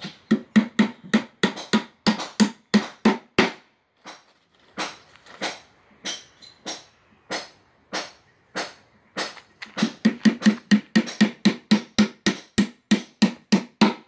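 Hammer driving nails into the warped wooden boards of a bee box. Quick runs of strikes, about three to four a second, with a slower, sparser stretch in the middle.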